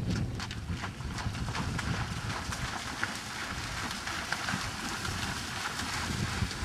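Hoofbeats of a grey horse trotting on turf, about three a second and clearest in the first two seconds, over a low steady rumble.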